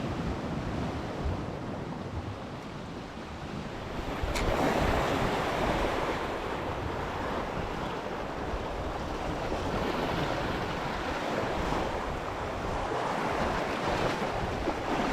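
Atlantic surf washing onto the shore, a steady rush of waves that swells louder about four seconds in and again later, with wind buffeting the microphone.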